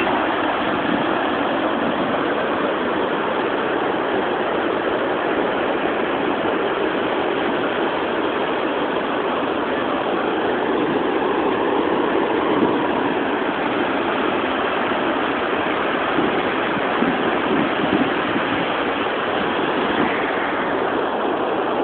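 Steady rushing noise of ocean surf breaking on the beach, with no let-up and only slight swells.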